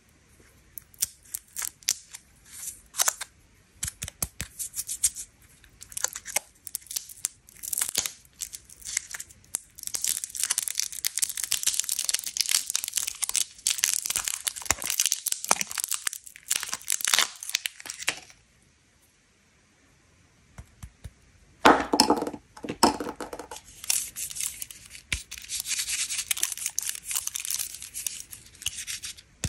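Thin plastic candy wrapper being crinkled and torn off a lollipop by hand: dense crackling and rustling. About two-thirds through there is a short pause, then a sharp, louder crackle as a round Milka Choco Wafer pack is handled, with more crinkling after it.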